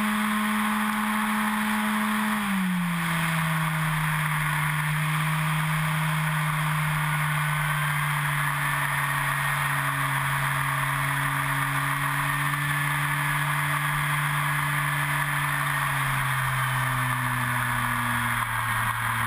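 E-flite Carbon-Z Yak 54 RC plane in flight, heard from on board: its electric motor and propeller hum steadily over rushing wind. The pitch drops about two and a half seconds in as the motor slows, and dips a little lower again near the end.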